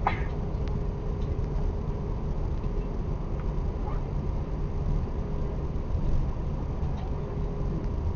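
Cabin noise of an Airbus A340-600 taxiing: a steady low rumble from the idling engines and rolling airframe, with a faint steady hum over it. A short squeak sounds right at the start.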